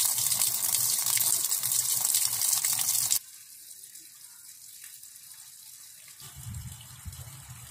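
Washing machine filling: water gushes in fast through the inlet valve, the inlet just cleaned of mud. The flow cuts off suddenly about three seconds in. Low, uneven rumbling starts near the end.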